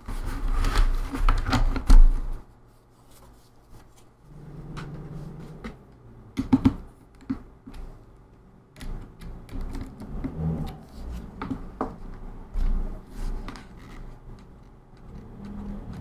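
Plastic laptop case parts being handled and set down: scattered clicks, knocks and rattles, loudest in the first two seconds and again about six and a half seconds in.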